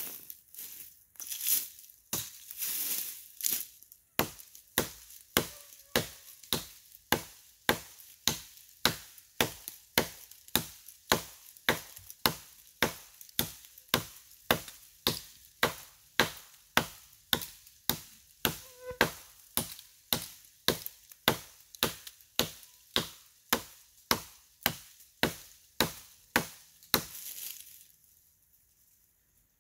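Fiskars hatchet chopping into a log: a long, steady run of sharp strikes at a little under two a second, which stops a couple of seconds before the end.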